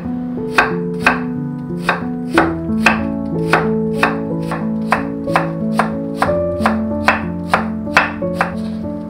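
Chef's knife cutting through Korean radish onto a wooden cutting board, a regular run of sharp strokes that quickens to about three a second, over acoustic guitar background music.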